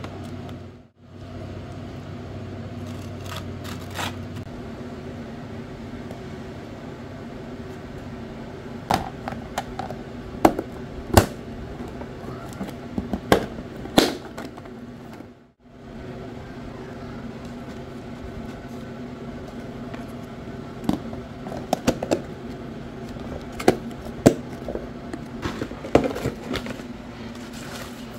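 Kitchen handling sounds: scattered sharp clicks and knocks in two clusters over a steady low hum, broken twice by brief drops to quiet.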